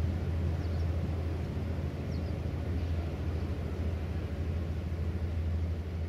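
Steady low engine drone carried across open water, with a constant outdoor hiss over it. Two faint, short high chirps about a second and two seconds in.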